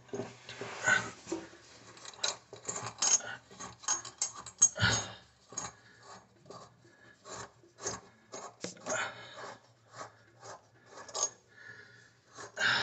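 A faucet mounting nut being turned by hand onto its threaded shank under a sink, with irregular scraping, rubbing and small clicks as the threads catch and slip.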